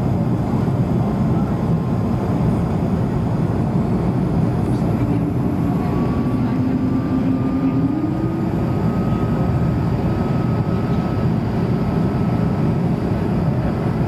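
Cabin noise inside a Bombardier CS100 airliner with Pratt & Whitney PW1500G turbofans, descending toward landing: a steady, loud rush of airflow and engine noise. From about five seconds in, faint tones rise slowly in pitch.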